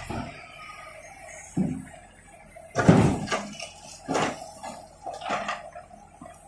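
Backhoe loader running while its backhoe bucket scrapes and clunks through broken concrete rubble, in a few separate knocks and scrapes, the loudest about three seconds in.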